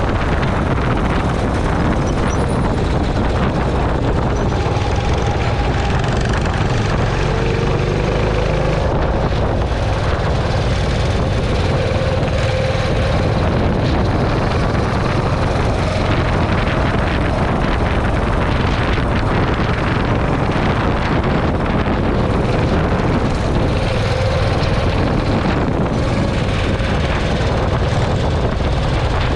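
Racing go-kart engines running hard, heard from a camera on the kart: a dense, steady rush of engine and wind noise with faint engine notes rising and falling as the karts close by speed up and slow through the corners.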